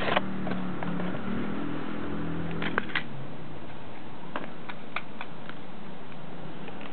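Plastic Gaia Memory toy being handled: a few sharp clicks, two near the middle and three more shortly after, over a steady low hum.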